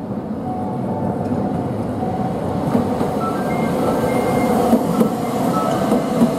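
Toei 8900 series tram running past close by on street track: steady wheel-on-rail and running noise growing louder as it approaches, with a few short sharp clacks in the last couple of seconds.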